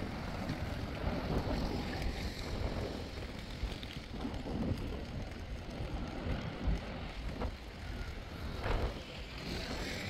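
Wind buffeting the microphone, a steady low rumble, over city street traffic noise from passing vehicles.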